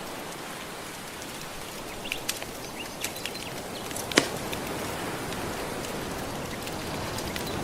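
Steady wash of gentle ocean waves mixed with the crackle of a wood fire: scattered small pops, and one sharp loud pop a little after four seconds in.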